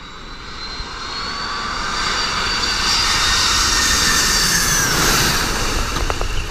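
Boeing 747's four jet engines on final approach, growing steadily louder as the airliner comes in low overhead. A high engine whine slides down in pitch about five seconds in as it passes.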